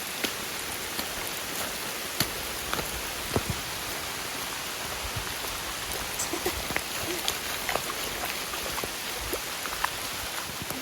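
Heavy rain falling steadily as a dense hiss, with scattered sharp taps of drops striking close by.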